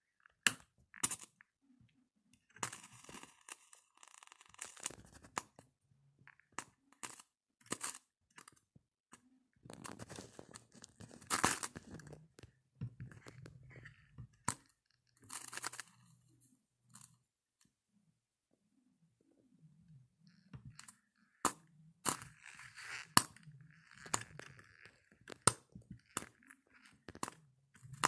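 Irregular sharp crackles and snaps of a 30-volt arc where a metal clip touches a carbon rod taken from a pencil, with softer rustling between them. It falls quiet for a couple of seconds past the middle.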